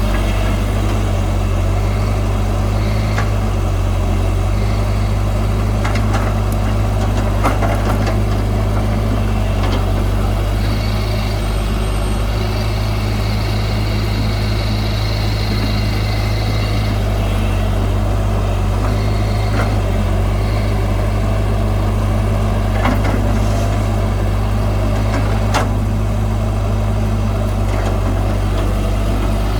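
Heavy diesel engine of earth-moving machinery running steadily with a deep drone, with scattered sharp metallic clicks and a high squeal lasting several seconds about midway.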